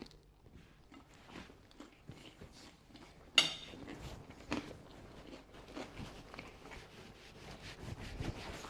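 Quiet eating sounds: chewing and small scattered clicks, with one sharp click about three and a half seconds in.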